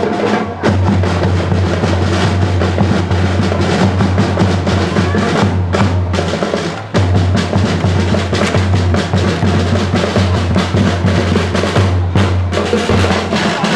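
Fast, continuous drumming with snare and bass drums, a driving festival dance beat that drops out for a moment about half a second in and again near seven seconds.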